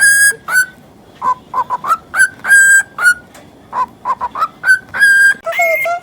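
Cockatiel chattering and whistling. It repeats a phrase of quick chirpy notes that ends in a few longer, clear whistled notes, twice over.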